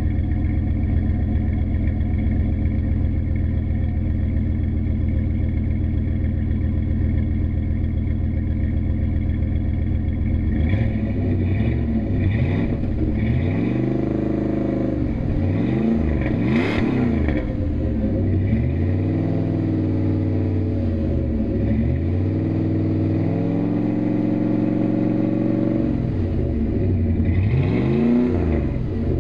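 1997 Dodge Dakota's 5.2-litre V8 exhausting through a Flowmaster muffler: it idles steadily for about ten seconds, then is revved repeatedly, each rev rising in pitch and dropping back to idle, with one longer hold in the later part.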